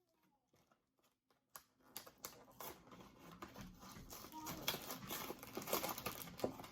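Plastic packaging crinkling and clicking as crackers and containers are handled, starting after about a second and a half of near silence and growing busier toward the end.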